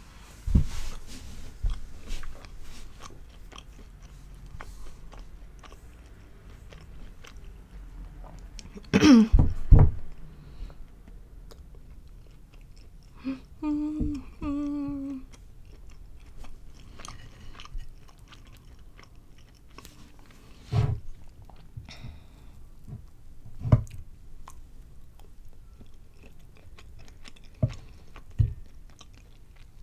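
Close-miked chewing of fried breaded mozzarella sticks: soft wet chewing with many small mouth clicks. About nine seconds in there is a loud vocal sound, about thirteen seconds in a few seconds of humming, and later a few dull knocks.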